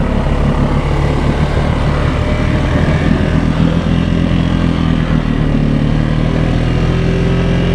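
Can-Am Outlander 700 ATV engine running steadily under load while the quad churns through a deep, water-filled mud hole, deep enough that water is reaching the CVT belt.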